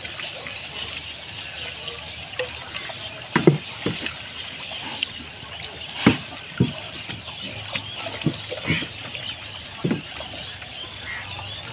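Pigs wallowing in a shallow pond: water sloshing, with several short, sudden low splashes, the loudest about three and a half and six seconds in, over a steady high background hiss.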